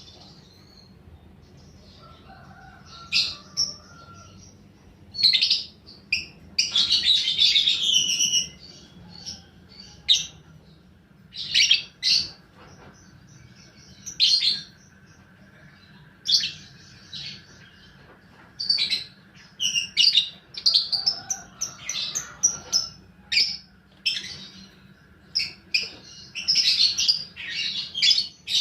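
Lovebird calling in repeated short, sharp chirps in quick bursts, with a longer chattering run about seven seconds in and another near the end, the kind of lovebird song kept as a lure recording to set other lovebirds off.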